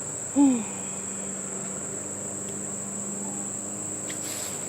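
Steady low buzz of honey bees from the opened hive, with the bees agitated, over a constant high-pitched insect trill. About half a second in there is a short, louder sound that bends in pitch.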